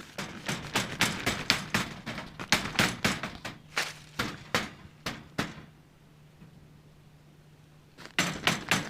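A rapid string of sharp knocks and clatter from a stick striking the animal's enclosure for about five seconds, then a pause and a few more knocks near the end. A faint steady low hum runs underneath.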